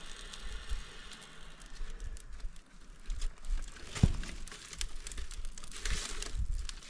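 Split kindling being placed by hand onto a newly lit birch-bark fire in a steel fire pit: wood knocking on wood, with one loud sharp knock about four seconds in and small crackling clicks throughout.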